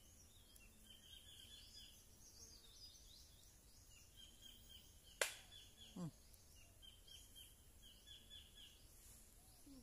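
Quiet outdoor ambience with faint high chirping that repeats rapidly throughout. About five seconds in there is one sharp click, then a brief falling squeak.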